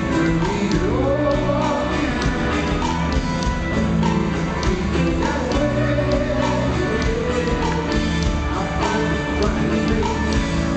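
Live rock band playing on stage: acoustic and electric guitars, bass and drums, with a lead vocal melody sung over them, heard through a handheld camera's microphone from the audience.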